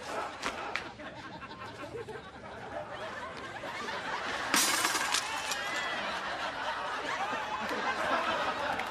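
Studio audience laughing, swelling louder from about three seconds in. A short, sharp burst of noise cuts in about halfway through.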